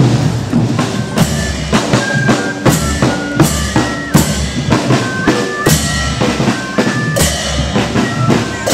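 Marching drum-and-fife band playing: a bass drum and snare beat a steady march rhythm, about two strokes a second, under a high piping melody of short notes.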